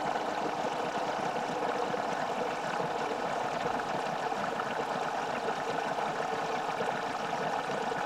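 LG front-loading washing machine filling through its water inlet valve in service test mode: a steady rush of water into the drum as the level nears the machine's full-rinse cut-off.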